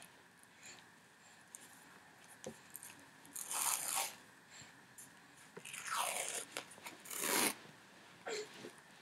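White athletic tape being pulled off its roll in three short peeling pulls, each a tearing noise: one about three and a half seconds in and two more between six and seven and a half seconds. Small handling clicks of the tape and roll come in between.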